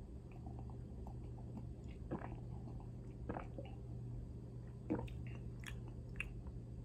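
A person sipping an energy drink from a small glass and swallowing, with a few faint gulps about two, three and five seconds in, over a low steady hum.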